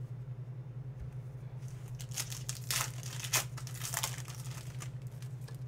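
Foil wrapper of a Panini Contenders football card pack being torn open and crinkled by hand, a cluster of rustles from about two to four seconds in, over a steady low hum.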